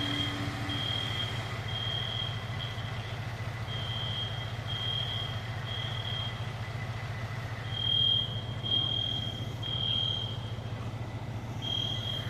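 Smoke alarm sounding short high beeps in groups of three with a brief pause between groups, the temporal-three evacuation pattern, over the steady low hum of an idling vehicle engine.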